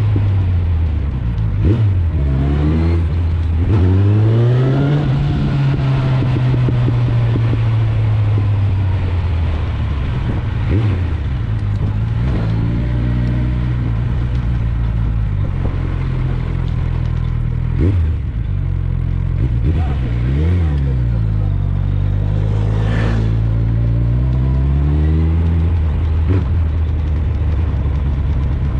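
Suzuki GSF 650 Bandit's inline-four engine through an Akrapovic exhaust, running on the move: the revs rise and fall several times as the bike accelerates and eases off.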